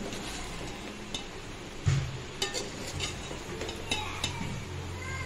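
A spoon stirring cooked ghee rice in a metal pot: soft scraping with scattered clinks against the pot, and a louder knock about two seconds in.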